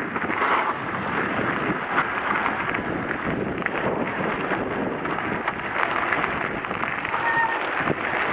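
Mountain bike riding along a gravel and dirt trail: a steady rush of tyre noise and wind on the bike-mounted camera, with scattered clicks and rattles from the bike and a short squeak near the end.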